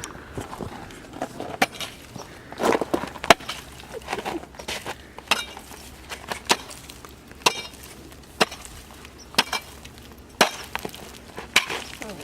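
Pickaxe striking thick ice on a concrete surface, about once a second, with crunching breaks and, on some blows, a short metallic ring.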